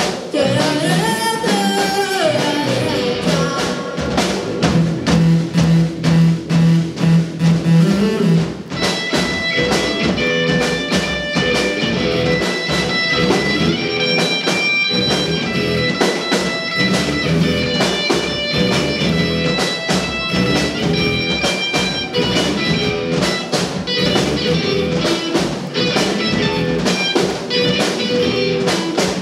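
Live rock band playing with electric guitars, bass, drum kit and keyboard, in a mostly instrumental passage with little singing. A low note is repeated steadily in the first few seconds before the full band continues with drums keeping time.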